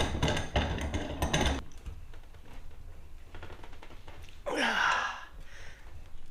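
Rapid metallic clicking and rattling in the first second and a half, then a short scrape about four and a half seconds in: a C-clamp being fitted and tightened on an aluminum jon boat's seat top and hull side.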